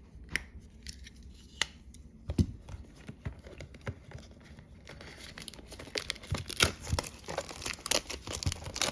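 Packaging of a Bowman U Chrome basketball-card blaster box being torn open by hand, with crinkling and tearing. Scattered clicks and taps at first, then from about five seconds in a busier run of crinkling and sharp snaps.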